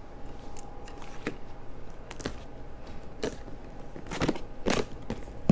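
Hands handling a cardboard box: scattered light taps and scrapes about a second apart, with two louder ones near the end, over a faint steady hum.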